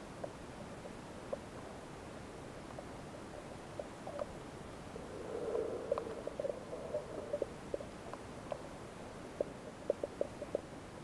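Underwater sound picked up by a camera in shallow sea water: a steady muffled hiss with scattered small clicks and pops. About five seconds in there is a brief louder muffled rush, and near the end a quick run of clicks.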